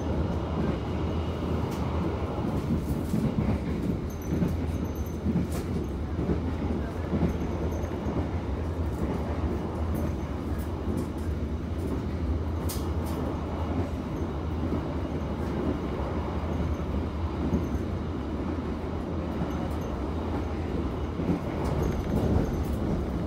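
Ride noise of a moving passenger train heard inside the coach: a steady rumble with scattered clicks from the wheels on the rails.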